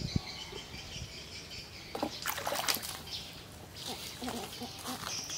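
Water splashing and dribbling in a shallow pond, with a short cluster of splashes about two to three seconds in. Birds chirp in the background at the start and near the end.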